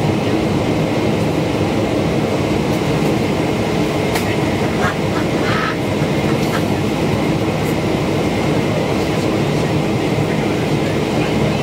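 Steady cabin noise inside a Boeing 777-200ER descending on final approach: the jet engines and the airflow past the fuselage make an even, loud rumble and hiss, heard from a window seat beside the engine.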